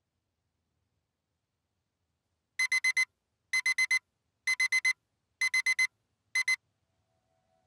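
Electronic wake-up alarm beeping: quick groups of four sharp, high beeps about a second apart, four such groups and then a single beep as it stops.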